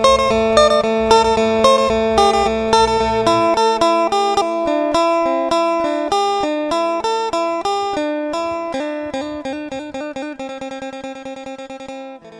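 Instrumental background music on a plucked string instrument over a steady drone. A low bass part drops out about a third of the way in, and the notes quicken and fade toward the end.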